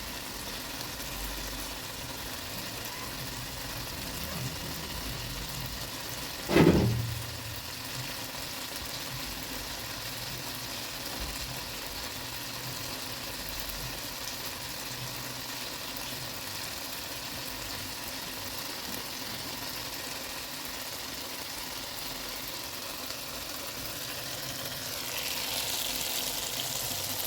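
Tomatoes sizzling steadily in a frying pan as they cook down. There is one brief loud sound about six and a half seconds in, and the sizzle grows louder near the end.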